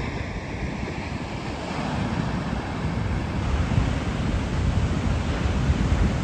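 Large ocean waves breaking on a sandy beach, a continuous roaring wash of surf that swells about two seconds in. Wind buffets the microphone throughout.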